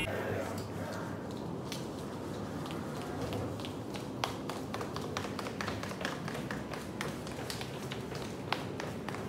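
Footsteps on a hard tiled floor: a string of light, irregular taps over a steady low background hum.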